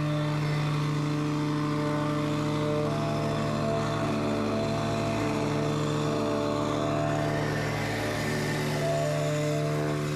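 Reversible plate compactor's engine running steadily at working speed while the plate vibrates across a loose gravel base.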